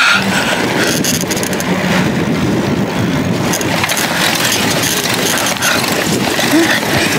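Wind rushing over a camera microphone carried on a moving bicycle: a loud, steady noise with no letup.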